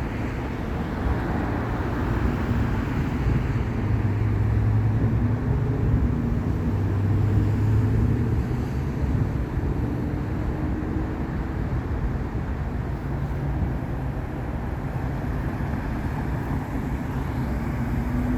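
Steady freeway traffic noise: a continuous rush of tyres and engines, with a deeper engine hum swelling about a third of the way in.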